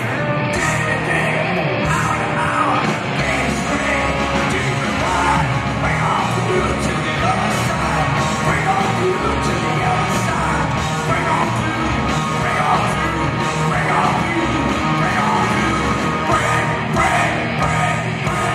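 Rock band playing live: electric guitars and drums under a male lead vocal sung with a yell into the microphone.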